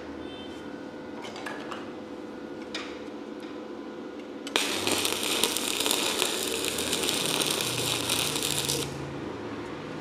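Electric arc welding on a mild-steel box-section stair stringer. About halfway in, a steady crackle and hiss starts abruptly, runs for about four seconds and cuts off sharply, laying a short weld on the joint. A few faint taps come before it.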